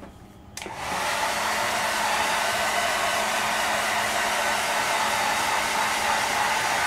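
Handheld hair dryer switched on with a click about half a second in. It comes up to speed within a moment, then runs steadily, blowing air.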